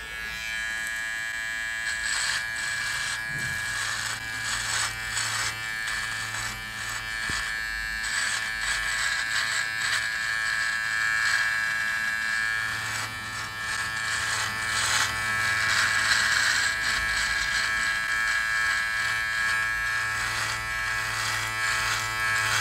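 Powertec TR-758 cordless beard trimmer running with a steady buzzing hum, its blade cutting beard hair with a crisp crackle from about two seconds in as it is passed over the cheek and neck.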